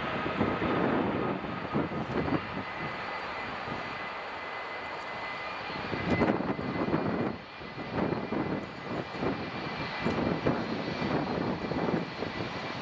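Boeing 777 freighter's twin jet engines at takeoff power during the takeoff roll and lift-off: a dense, uneven rushing noise with a thin steady whine over it.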